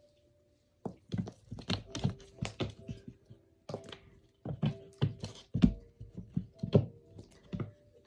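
Irregular sharp knocks and plastic clattering, several a second, as a kitten bats at and pounces on a motorized flying-bird cat toy; they start about a second in.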